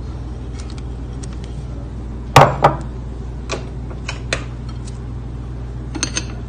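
A few short knocks and clinks of a utensil on the frying pan and dishes over a steady low hum; the loudest knock comes about two and a half seconds in.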